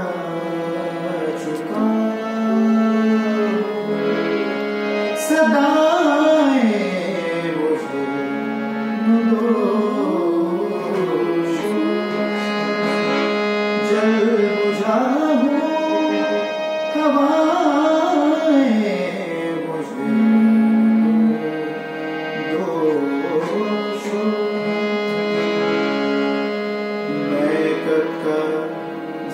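A man singing a ghazal with long, gliding wordless phrases over the sustained chords of a hand-pumped harmonium.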